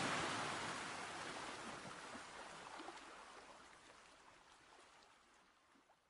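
A soft, even hiss that fades out steadily and is gone by about four seconds in.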